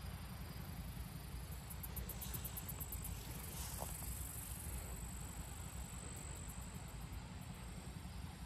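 Insects chirping in fast, high-pitched pulse trains that come and go, over a steady low rumble of wind on the microphone.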